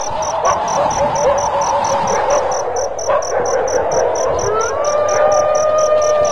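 Night ambience: crickets chirping steadily, about five chirps a second, over a denser, lower night chorus. About four and a half seconds in, two long held musical tones slide up and hold.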